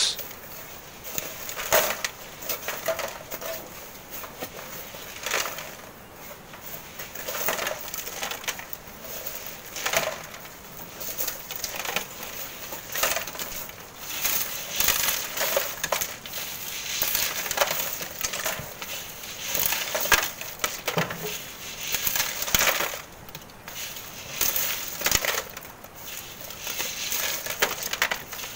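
Steel shovels scraping into and tossing sand, with sand rattling through a hand sieve into wheelbarrows, in short strokes every second or two.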